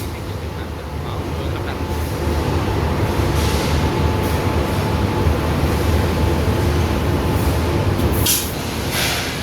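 Colour roof-tile painting line running: a steady machinery drone with a low hum, broken by short hissing bursts about three and a half seconds in and twice near the end.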